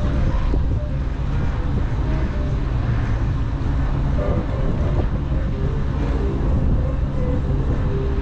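Dutch barge's inboard engine running steadily as the boat cruises along the canal, a low, even sound with no change in pace.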